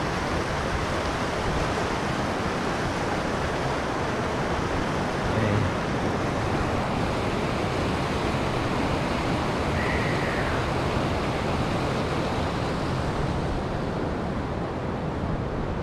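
Linville River rushing over rocks: a steady, even rush of whitewater.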